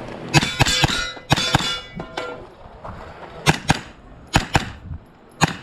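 A string of gunshots fired in quick groups, about a dozen or more, during a timed course of fire. Steel targets clang and ring after hits in the first couple of seconds.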